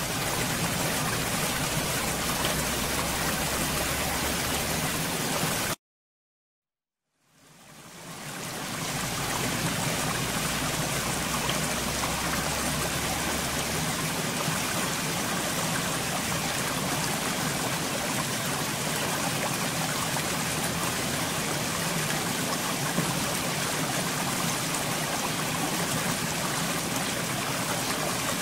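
Steady rushing sound of running water, like a stream. It cuts out abruptly about six seconds in, then fades back up a second and a half later.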